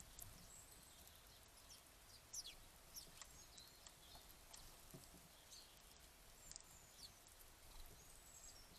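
Faint, scattered calls of small birds: short high chirps and thin notes that fall quickly in pitch, over a low background hiss.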